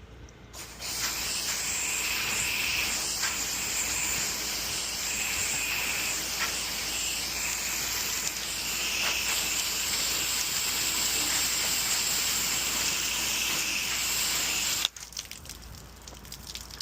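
Pressure washer wand spraying a steady hissing jet, starting just under a second in and cutting off suddenly near the end as the trigger is released.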